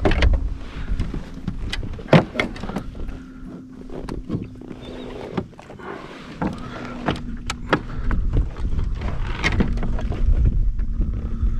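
Irregular knocks and clicks of a landed redfish being handled and unhooked aboard a plastic fishing kayak, with wind rumbling on the microphone, heaviest at the start and near the end.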